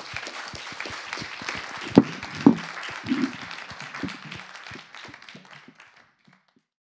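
Audience applauding, the clapping thinning out and stopping about six seconds in. Two louder knocks stand out about two seconds in.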